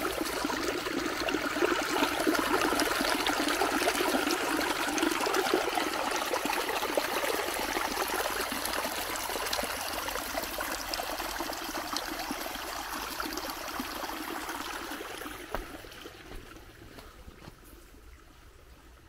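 Running water, a stream or channel splashing and trickling steadily, fading away over the last few seconds.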